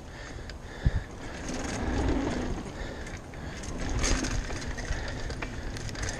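Mountain bike riding fast over a dirt trail: steady tyre and wind rumble with the bike rattling and clicking over bumps, and a sharp thump about a second in.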